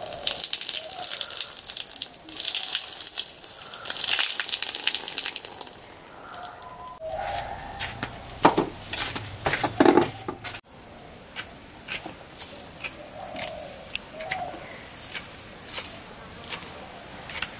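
Water pouring and splashing off a plastic bowl of rinsed green chilies for the first few seconds. Then a steady high-pitched insect drone, with a few loud thumps around eight to ten seconds in and light ticks after.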